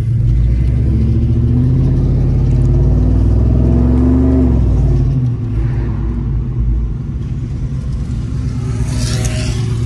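2002 Ford Mustang GT's 4.6-litre V8 heard from inside the cabin, accelerating with the revs climbing for about four seconds, then dropping suddenly and settling into a steadier, lower drone.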